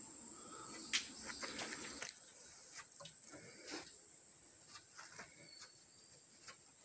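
Quiet tropical forest ambience: a steady high insect whine, with scattered light clicks and rustles that are busiest in the first couple of seconds.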